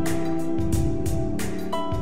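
Instrumental background music: plucked notes that start sharply and ring on, over a low bass line.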